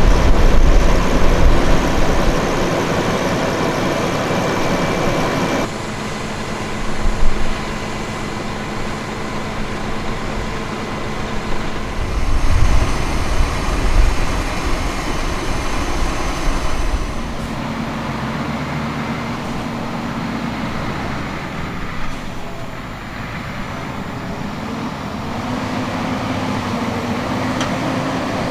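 Fendt 936 Vario tractor's six-cylinder diesel engine running under load while pulling a slurry tanker spreading liquid, a steady engine note whose level and tone shift abruptly about six seconds in, with heavier low rumbling around the middle.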